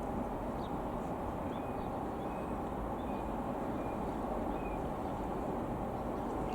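A steady low rumble of outdoor background noise, with a few faint, short, high bird chirps scattered through the middle.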